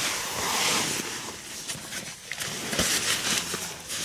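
Wind buffeting the microphone: an uneven rushing noise that swells and dips, with a few dull thumps.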